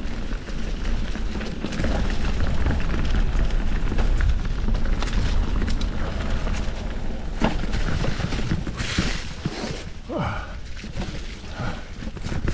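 Polygon D6 mountain bike being ridden on a dirt trail: wind buffeting the microphone as a low rumble, with tyre noise and the rattle and knocks of the bike over rough ground, and a brief louder hiss about nine seconds in.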